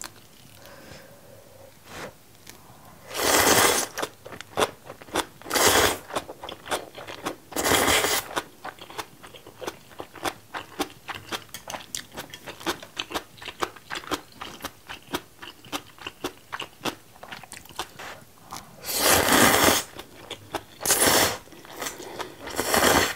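Close-up eating of seafood jjamppong ramen: about six loud noodle slurps of half a second to a second each, with quick wet chewing and crunching clicks in between.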